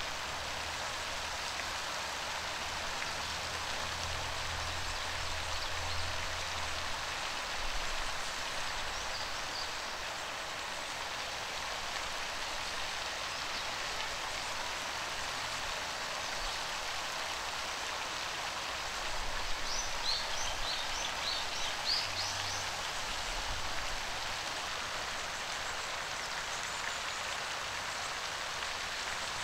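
Steady hiss of water through the whole stretch, with a short run of high peeps about twenty seconds in.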